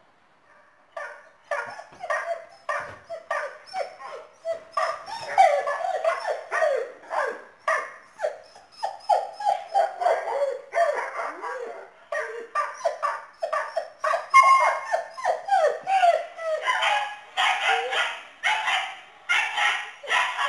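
Dog giving a long run of short yips and barks, each call sliding down in pitch, about two a second.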